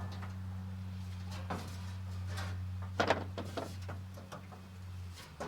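Knocks and clicks of hands working on a pickup's tailgate panel and its rusted fastener, a few separate strokes with a small cluster about three seconds in. A steady low hum runs underneath and stops shortly before the end.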